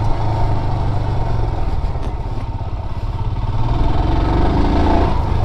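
Royal Enfield motorcycle engine running as it is ridden over a dirt off-road track, with a rising rev about four seconds in.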